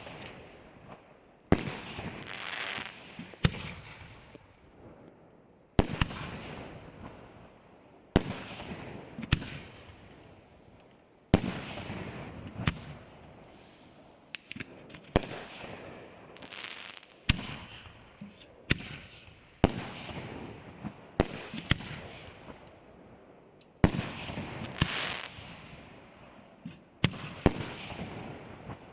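Aerial firework shells bursting one after another, about one every two seconds. Each burst is a sharp bang followed by a crackling, echoing tail that fades away.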